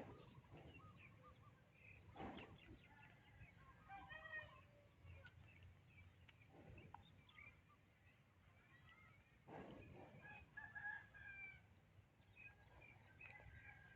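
Faint chickens calling, with a rooster crowing among many short clucks and chirps, and a few soft rustling noises in between.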